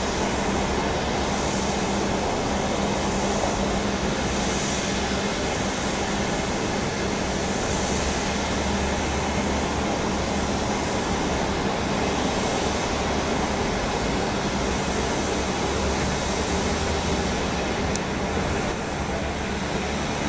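Boeing 737-700's jet engines running steadily at low taxi power, heard from a distance as an even rumble with a faint steady hum.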